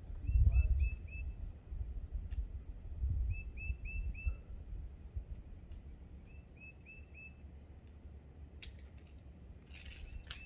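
A songbird singing a short phrase of four or five quick, identical whistled notes, repeated about every three seconds, over a low rumble that swells twice early on.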